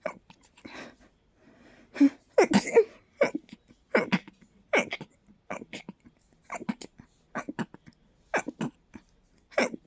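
A person's stifled sneezes in a rapid fit: a long run of short, sharp bursts about every half second to a second, loudest about two to three seconds in.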